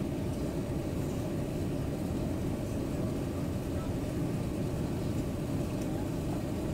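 Steady low rumble inside an airliner's cabin on approach to landing: engine and airflow noise heard through the fuselage.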